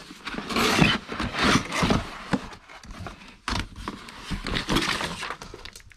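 Cardboard laptop box being opened and handled: irregular scraping and rustling of the flaps and the inner package sliding against the cardboard, with a sharp tap about three and a half seconds in.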